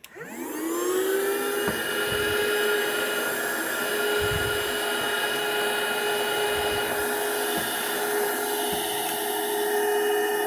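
Romancom XC-01 handheld cordless vacuum cleaner switched on: its motor whines up to speed in the first second, then runs with a steady high whine and airflow hiss. A few brief low thuds come along the way.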